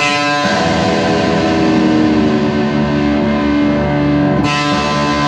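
Distorted electric guitar with the open D string and the low E string ringing together as the low E is tuned down to D by ear to match it. The strings are struck just after the start and again about four and a half seconds in, and ring on between the strikes.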